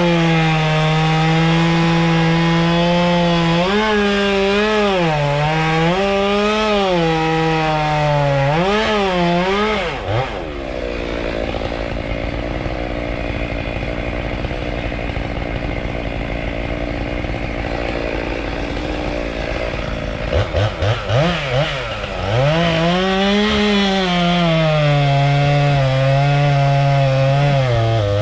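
Stihl MS193T two-stroke top-handle chainsaw at full throttle, its pitch sagging and recovering again and again as it cuts into wood. About ten seconds in it drops to idle; a few quick throttle blips follow, and then it runs back up to full revs, bogging under load again.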